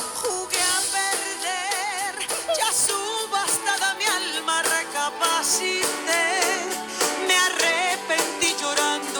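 Background music: a song with a singer's voice wavering in vibrato over an instrumental backing with a steady beat.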